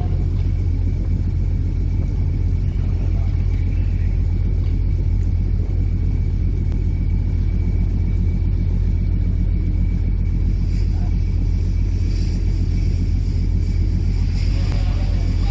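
Passenger ferry's engines running steadily, a deep even rumble heard on board, with a faint steady high whine over it.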